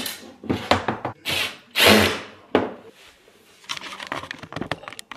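Drawers being assembled: two short bursts of a power drill driving screws, with sharp clicks and knocks of the parts and a quick run of small ticks near the end.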